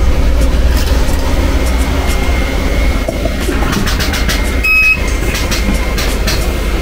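Inverter resistance spot welder on a car body panel: a steady low hum with scattered sharp clicks, and a short high electronic beep just under five seconds in.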